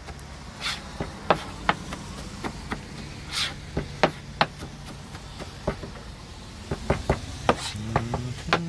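Kitchen knife chopping fast on a cutting board: sharp, irregular knocks of the blade hitting the board, a few a second, as ingredients for conch salad are diced.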